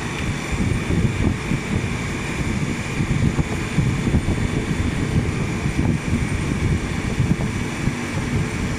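Bitzer refrigeration condensing unit of a cold room running steadily, its compressor and condenser fan making a constant rumble with a faint steady whine; the unit has just been recharged with refrigerant after a leak repair.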